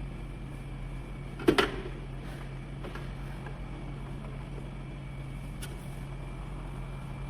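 A steady low machine hum with one sharp knock about a second and a half in.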